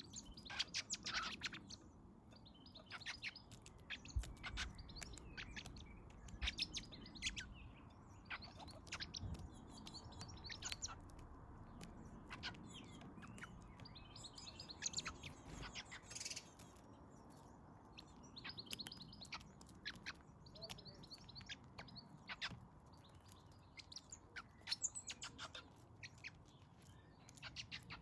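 Small garden birds chirping in quick, short notes, in clusters throughout, over a faint low rumble.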